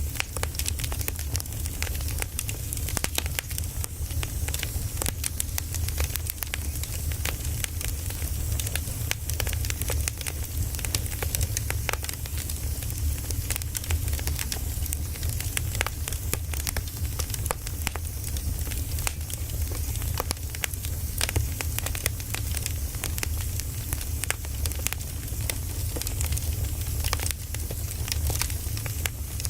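Firewood burning, with frequent irregular sharp crackles and pops over a steady low rumble.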